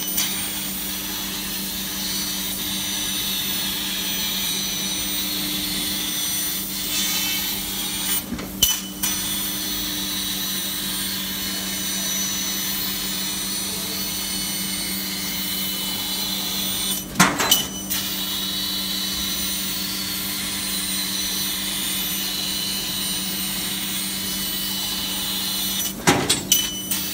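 CNC fiber laser cutting machine cutting steel sheet: a steady hiss with a constant low machine hum under it. Three times, about 8, 17 and 26 seconds in, it is broken by a short loud burst of a few sharp pops.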